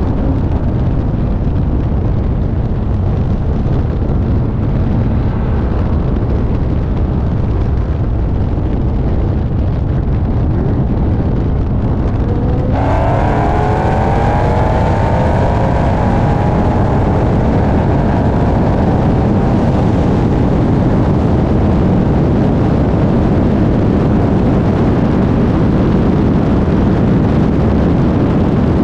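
Dodge Charger SRT Hellcat's supercharged V8, heard from a camera mounted on the car with heavy wind and road noise: it cruises steadily, then about 13 seconds in it goes to full throttle. The engine note and a whine climb steadily in pitch as the car pulls hard from about 57 to over 140 mph.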